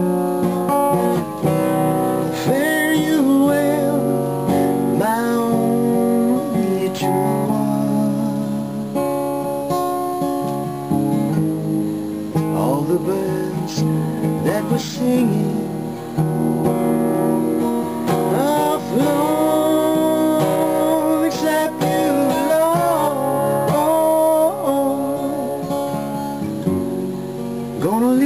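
Acoustic guitar strummed by hand, with no pick, while a man sings along.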